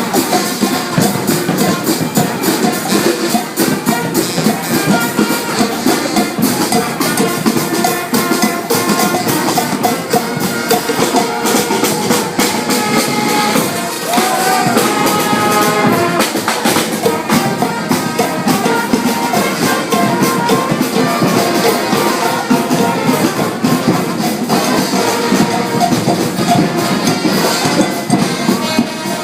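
Marching band playing: a busy drum and percussion beat with horns over it.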